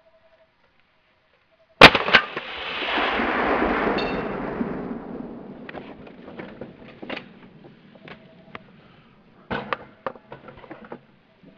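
A single rifle shot about two seconds in, its report rolling out and fading over the next few seconds. Several lighter clicks and knocks follow near the end.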